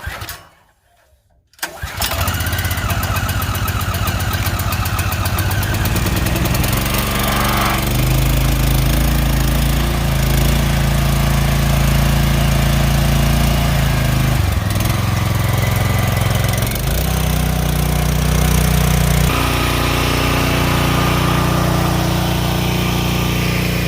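Kohler petrol engine of a Stihl RB800 pressure washer starting about two seconds in, speeding up over the next few seconds, then running steadily, its note shifting a few times.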